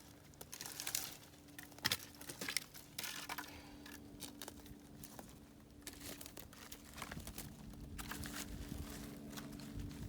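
Dry leaves and twigs rustling and crackling in irregular bursts as brush is handled or walked through, over a faint steady low hum.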